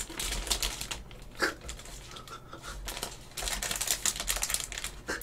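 Thin plastic snack wrapper of a Pepero pack crinkling and being torn open by hand, in irregular crackles that grow busier over the last couple of seconds.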